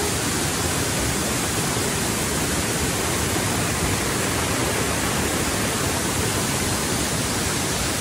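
Steady, even rush of water from a waterfall and the rocky mountain stream cascading below it.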